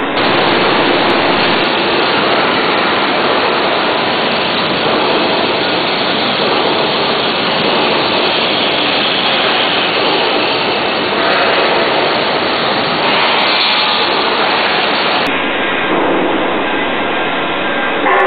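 Loud, steady hiss-like noise of a working structural steel fabrication shop, where welding and cutting are under way, with no distinct strikes or tones. The sound changes abruptly about three-quarters of the way through.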